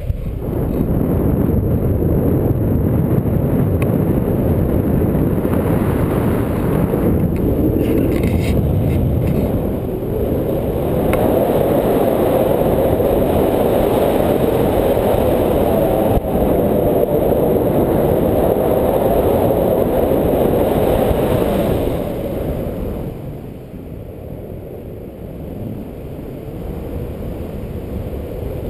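Wind buffeting the microphone of a camera held out on a pole in tandem paraglider flight: a loud, steady rushing rumble that eases off for the last several seconds.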